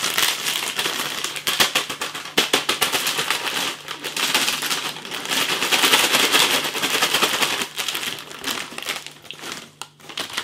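Plastic snack bag crinkling, with the pork crunch pieces inside rattling as they are shaken through the seasoning dust at the bottom: a dense run of quick crackles that thins out near the end.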